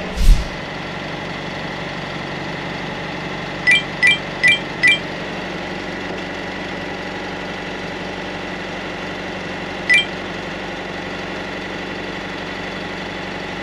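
Truck engine idling steadily, with a brief thud just after the start. Four quick, sharp metallic clinks come about four seconds in, about half a second apart, and one more near ten seconds.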